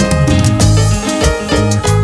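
Upbeat Latin-style evangelical revival chorus (coro de avivamiento) music, with a steady bass line under held tones and a quick, even beat.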